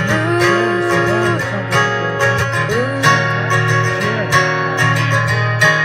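Acoustic guitar strummed in a steady rhythm, with a voice singing over it.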